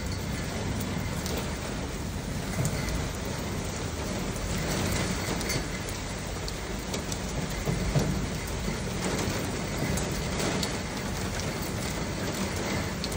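Heavy rain pouring steadily, with scattered sharp taps of drops and a low rumble underneath.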